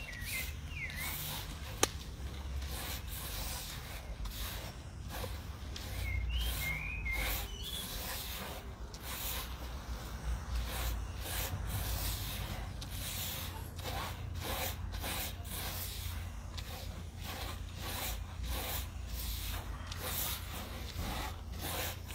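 Gloved hand rubbing damp fishing earth across a mesh sieve, a run of repeated scraping, rustling strokes as the grains are pushed through the screen.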